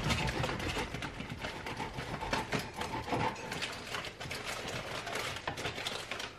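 Serrated bread knife sawing back and forth through crusty bread on a wooden board, the crust crackling with many quick rasping clicks under the blade. It stops near the end.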